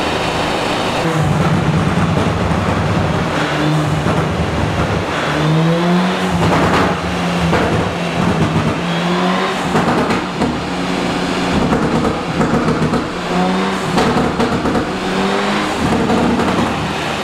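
Stage-2-remapped turbocharged VW Jetta engine revving up hard several times, its pitch climbing and dropping, with a few sharp cracks that fit the pops-and-bangs exhaust map.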